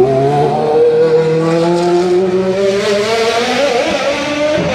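Racing car engine running hard under acceleration, its pitch climbing steadily, then dropping sharply near the end.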